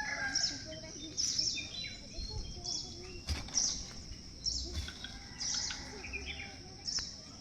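Small birds chirping: short high calls repeating about once a second, with softer, lower calls between them.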